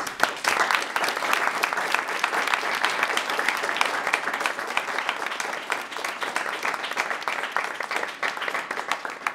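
Audience applauding: dense clapping that starts abruptly and thins out to a few scattered claps near the end.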